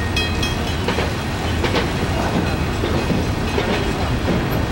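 Freight train of covered hopper wagons rolling past, a steady rumble with the wheels clacking over the rail joints. Short high ringing notes sound a few times in the first second.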